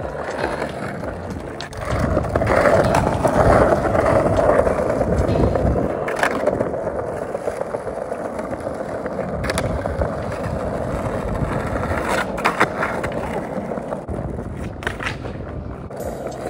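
Skateboard wheels rolling over paving tiles with a steady rumble during freestyle skating. Several sharp clacks of the board come through, a few seconds apart, clustered in the second half.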